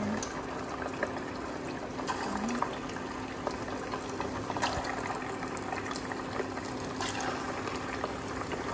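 Meatballs deep-frying in hot oil in a small saucepan: steady sizzling and bubbling with scattered sharp crackles.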